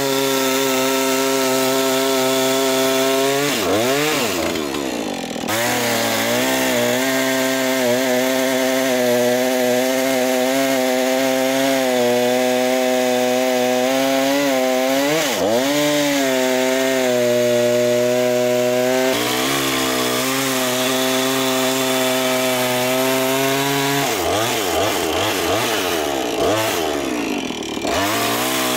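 Petrol chainsaw crosscutting a birch log into firewood lengths: the engine runs at steady high revs while the chain cuts through the wood. A few times the pitch drops and swoops back up as a cut finishes and the throttle is eased before the next cut.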